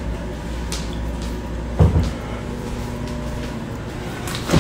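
Kitchen cupboard doors being opened and knocked shut: a pair of thuds about two seconds in and another near the end, over a steady low hum that stops a second before the end.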